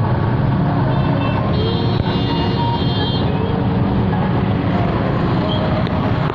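Road traffic noise in a jam: a steady, loud, low engine rumble from idling and creeping cars and motorbikes. A faint high-pitched tone sounds briefly about two seconds in.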